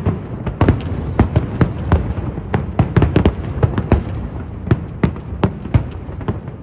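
Fireworks display: aerial shells bursting in a rapid, irregular series of sharp bangs, several a second, over a continuous low rumble.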